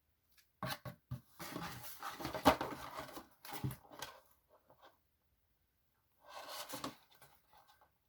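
Packaging being handled and opened: a few sharp clicks, then rustling and crinkling for a couple of seconds, and another short rustle a few seconds later.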